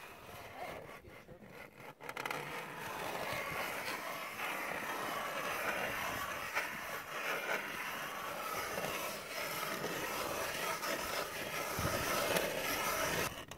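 Hand-cranked ice auger boring through lake ice: a steady grinding scrape of the blades cutting ice. It starts about two seconds in and cuts off suddenly near the end.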